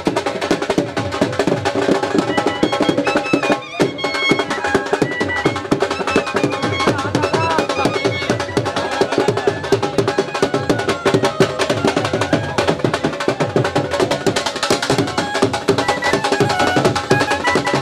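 Dhol drums beaten in a fast, steady rhythm, with a pitched melody gliding over the drumming and a short break a little over three and a half seconds in.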